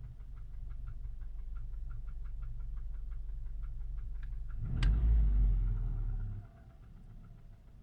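VW 1.4 TSI twincharged (CAVD) engine running at idle with a regular knocking about three times a second. The knock is still there despite a new timing chain set and fresh 5W-40 oil. About halfway through there is one sharp knock, and the low rumble swells for a second or so.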